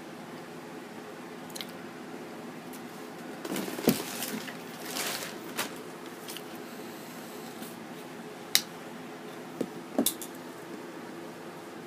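Chewing a crunchy fried taquito: soft crunching and wet mouth sounds in a cluster a few seconds in, then a few sharp clicks later on, over a steady low hum.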